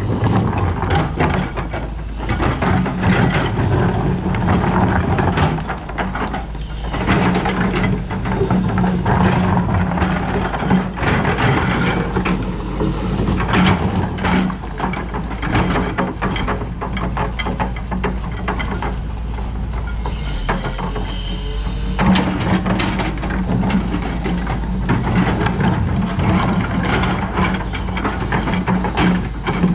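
Doosan DX225LCA hydraulic excavator working: its diesel engine runs steadily, its note swelling and easing, under a constant stream of metallic clanks and rattles from the machine at work.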